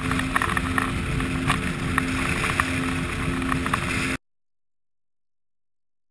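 Rigid inflatable boat running fast over choppy water: a steady engine drone under heavy wind buffeting on the microphone, with sharp slaps of the hull against the waves. The sound cuts off abruptly to silence about four seconds in.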